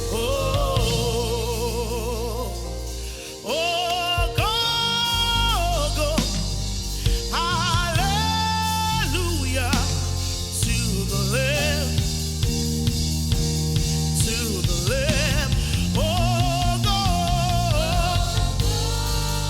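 Live gospel worship music: a singer holding long notes with vibrato over a band with sustained bass and drums.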